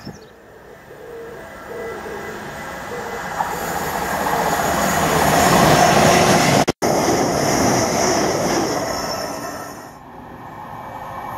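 An electric multiple unit approaching and running through the station, its wheel and rail noise swelling steadily louder. The sound cuts off abruptly about two-thirds of the way through. The rail noise then dies away and builds again as a Class 66 diesel locomotive approaches near the end.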